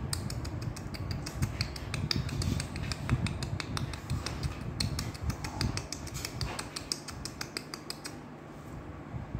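A Pomeranian puppy gnawing on a thin plastic food tray: rapid, irregular plastic clicks and crackles from its teeth, thinning out near the end.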